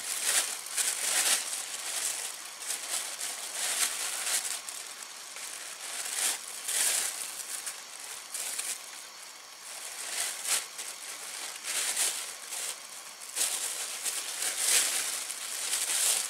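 Clear plastic bag crinkling and rustling on and off as it is handled.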